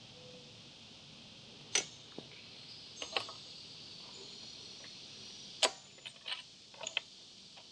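Sharp metallic clicks and clinks of hand wrenches on a motorcycle's axle nuts: single clicks about two and three seconds in, a louder one past the middle, then a quick cluster near the end.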